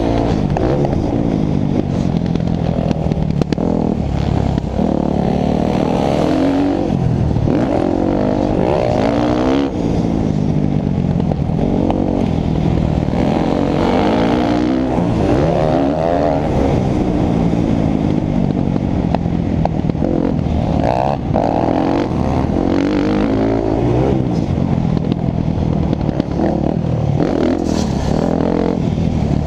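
Dirt bike engine heard on board, revving up and down again and again as the bike accelerates, shifts and backs off around a motocross track.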